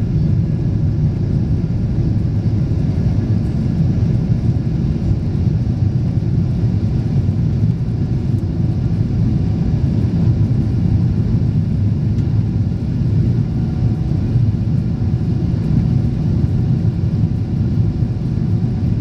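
Steady low rumble of jet engines and rushing air heard inside an airliner's cabin as it climbs after takeoff.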